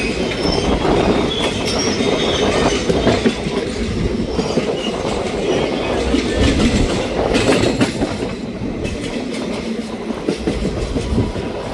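Train running on the track, its wheels clattering steadily over the rails with irregular clicks.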